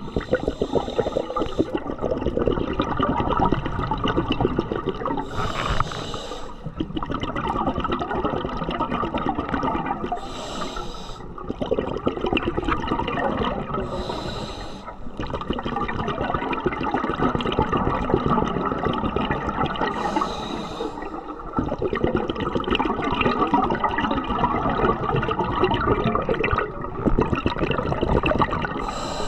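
Scuba diver breathing through a regulator underwater: long stretches of crackling, bubbling exhaust bubbles, each broken by a brief hiss of the inhale, repeating about every four to six seconds.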